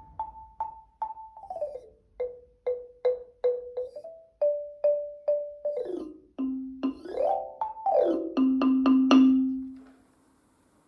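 A xylophone played with a beater as a graphic-score line: evenly spaced single notes, about two a second, stepping up and down in pitch. Quick slides up and down the bars follow, and it ends on a repeated low note left to ring out.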